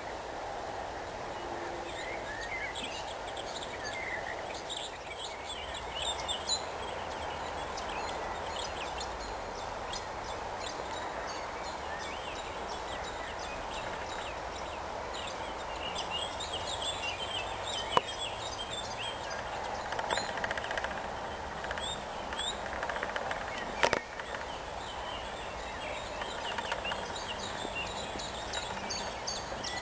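Several songbirds singing together, with warbling phrases and, at times, a fast, evenly repeated rasping trill over a steady background hiss. Two sharp clicks stand out, the second a little past two-thirds of the way through.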